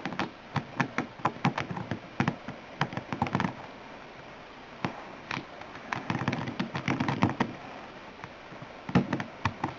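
Handling noise of gloved fingers working grease into a Maglite's plastic lamp-holder assembly: irregular small clicks and taps of fingertips on the plastic and the metal contact, with a stretch of rubbing and scratching about six to seven seconds in.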